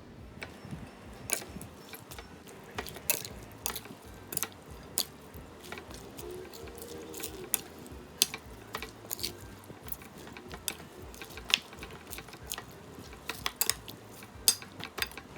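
Utensils clinking and clattering against a dish: irregular sharp clicks, a few a second.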